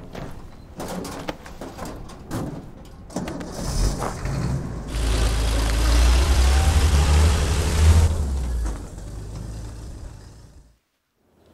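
Heavy six-wheeled army truck driving past, its engine rumble building about four seconds in, loudest for a few seconds, then fading away. Light knocks come before it, and the sound cuts off abruptly near the end.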